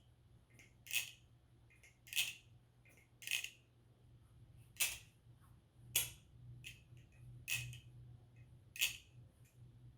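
Aluminum balisong bottle opener being flipped, its handles clacking together in about seven sharp clicks roughly a second apart.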